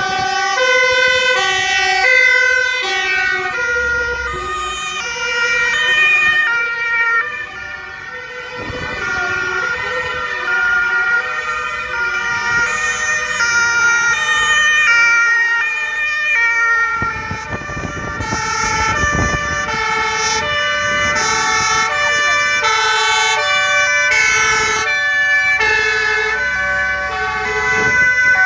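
Several emergency-vehicle sirens wailing at once, each alternating between two notes, overlapping at different pitches as the convoy approaches. A passing vehicle's engine and road noise rises under the sirens about two-thirds of the way through.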